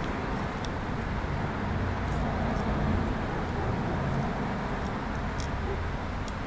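Steady low background rumble, like road traffic, with a few faint light ticks from small chainring bolts being threaded in by hand.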